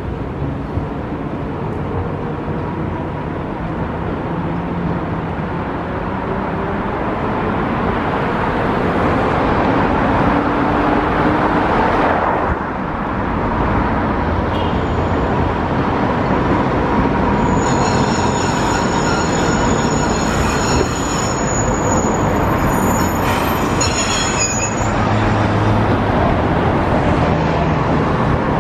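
Iyotetsu type 50 tram with nose-suspended traction motors running in on street track and pulling up, its motors and wheels rumbling louder as it nears. A high-pitched squeal from the tram sounds for several seconds about two-thirds of the way through.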